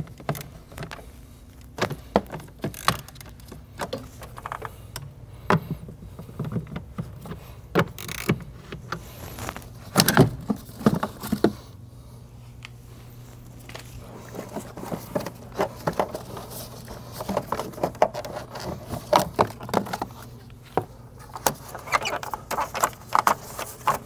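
Irregular clicks, clunks and rattles of hand tools and plastic engine-bay trim being worked loose, as the cowl cover is taken off a BMW N54 engine bay. A steady low hum runs underneath.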